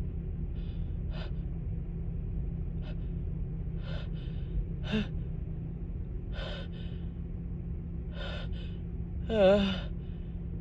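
A person with a head cold and stuffy nose sniffing and drawing short breaths again and again as a nose tickle builds. Near the end comes a louder, quavering voiced gasp, the build-up of a sneeze that doesn't come: a false start. A steady low hum runs underneath.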